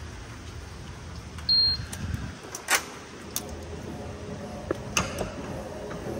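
A gym door being opened and walked through: a short high beep about a second and a half in, then several sharp latch clicks and knocks.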